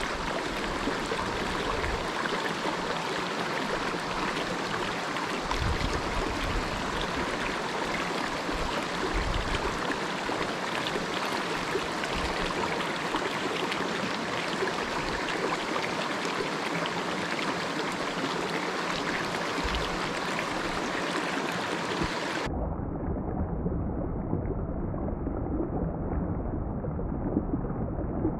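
Mountain stream water rushing steadily over rocks. About three quarters in the sound turns abruptly duller, its higher part cut away.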